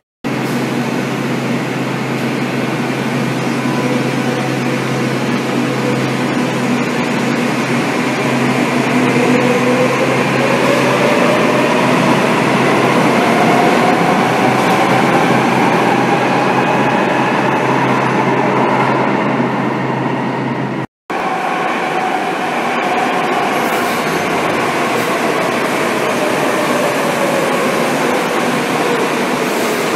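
Metro de Madrid 5000-series train running through a station: wheels on rail and a motor whine that climbs in pitch and then falls away. About two-thirds of the way through the sound cuts out for a moment, then another passage follows with a falling whine.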